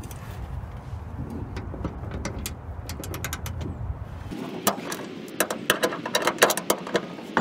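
Ratchet wrench clicking as it works the 12 mm bolts on a car's hood hinge. A few scattered clicks over a low rumble at first, then a quick run of clicks from about four and a half seconds in.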